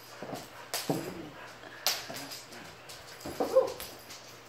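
Kittens playing on a hardwood floor and rug: a few scattered light knocks and thumps from pouncing paws, and a short mewing cry from a kitten about three and a half seconds in, the loudest sound.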